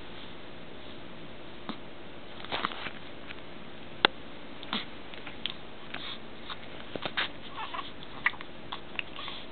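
Newborn baby hiccuping: a series of short hics at irregular spacing, the sharpest about four seconds in, over a steady background hum.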